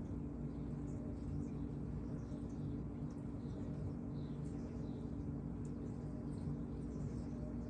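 Faint, scattered chirps of small backyard birds over a steady low hum.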